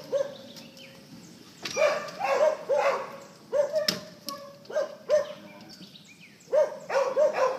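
Sniffer dog whining and yipping in short groups of calls, with quiet gaps between them.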